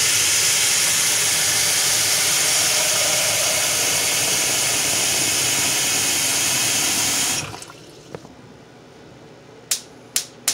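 Tap water running hard into a stainless steel saucepan of saltfish in a sink, filling the pot, and cutting off about seven seconds in. A few sharp clicks follow near the end.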